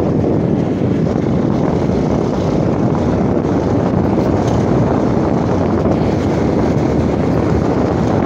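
A motorcycle riding at speed on a gravel road: steady wind rush on the microphone over the running engine and the tyres on loose stones.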